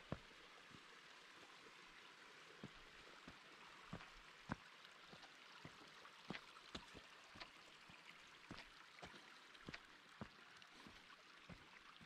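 Faint, steady rush of a mountain stream flowing over rock, with light, sharp taps about twice a second from footsteps on the stone riverbed.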